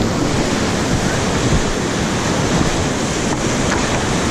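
Loud, steady rushing of whitewater rapids around a raft, with wind buffeting the microphone.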